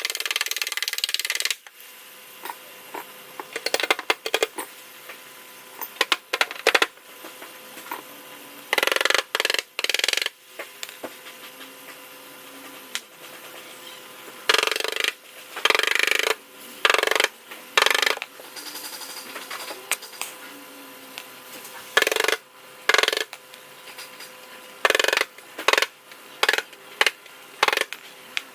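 Bodywork tool noise in short, irregular bursts, each under about a second long and about twenty in all, over a faint steady hum.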